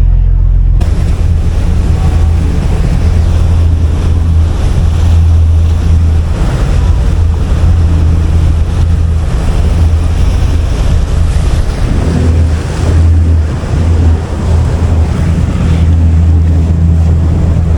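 Wind buffeting the microphone on a moving ferry, over the low, steady drone of the ferry's engine and water rushing past the hull.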